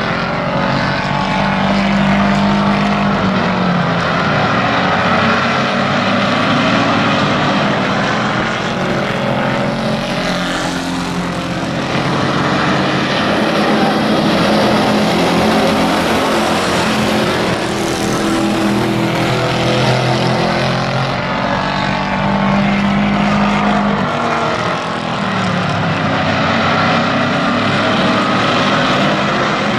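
Several pickup-truck race engines running hard together as a pack laps an oval track, their pitch rising and falling as the trucks lift for the turns and accelerate down the straights.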